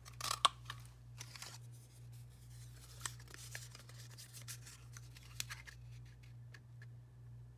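Hand-held triple banner paper punch clicking through cardstock to notch its end, a sharp crunchy snap about half a second in, followed by paper rustling and a few lighter clicks as the piece is handled.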